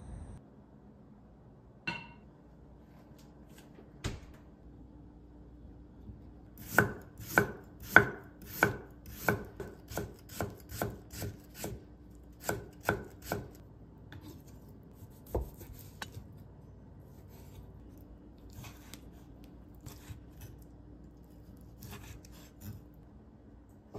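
A kitchen knife cutting on a wooden cutting board: a run of crisp, even strokes about two a second as new ginger is cut into thin strips, then softer, scattered cuts through boiled octopus near the end. A single ringing knock comes about two seconds in.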